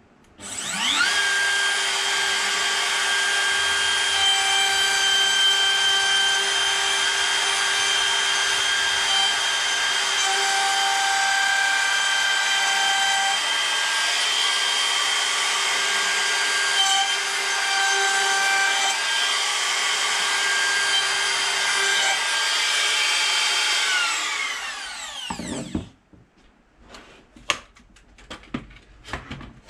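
Makita RT0702C 710 W trim router, its speed dial on 4, spins up about half a second in and runs with a steady high whine as it cuts along a wooden edge against a straight-edge guide. About 24 seconds in it is switched off and winds down with a falling whine, followed by a few light clicks and knocks.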